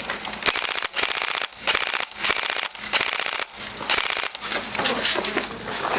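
Tokyo Marui M4 electric-blowback airsoft rifle firing on full auto in about six short bursts of rapid clicking shots, each around half a second long, stopping after about four and a half seconds.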